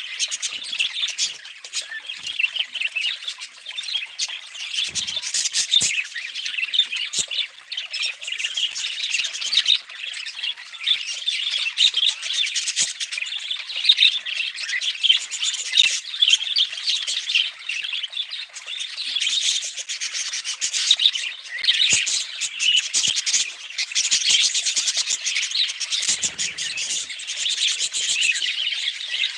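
Pet budgerigar chatter: a continuous stream of rapid chirps and squawks.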